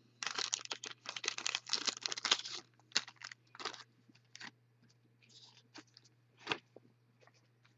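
Crinkling and tearing of a plastic trading-card wrapper for about two and a half seconds, then scattered light crackles and clicks as cards and wrappers are handled.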